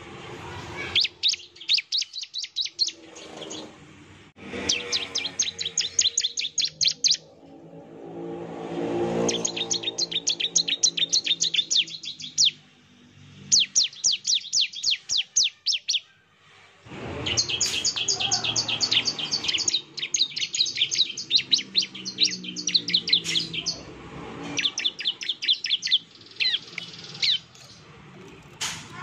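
Ciblek (bar-winged prinia) singing its 'nembak' song: rapid runs of sharp, high, repeated notes in bursts of one to three seconds, separated by short pauses. A low hum runs underneath in two longer stretches.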